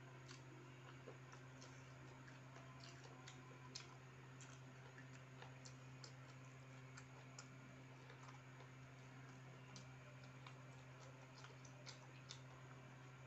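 Faint eating sounds from rice eaten by hand: scattered soft clicks and smacks at irregular intervals, over a steady low hum.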